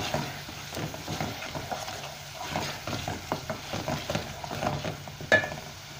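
Spoon stirring and scraping garlic and ground spices frying in an onion-tomato masala in an aluminium pot, with a soft sizzle under irregular scrapes and clicks against the pot. One sharper click about five seconds in.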